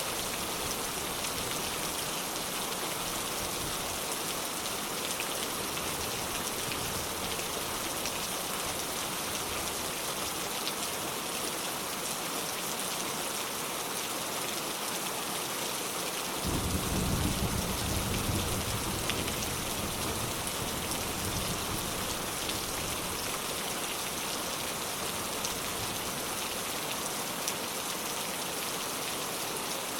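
Steady rain falling. A little past halfway a low rumble of distant thunder rolls in for a few seconds, then fades back under the rain.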